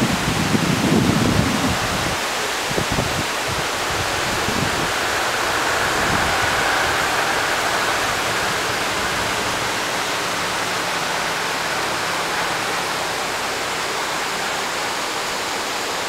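Mountain river rushing over rocks: a steady hiss of running water. A low rumble with a few knocks in the first three seconds or so.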